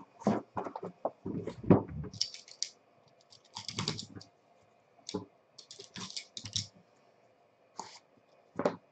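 Hands handling a metal trading-card tin and the cardboard card case inside it: an irregular string of clicks, taps and short rustles.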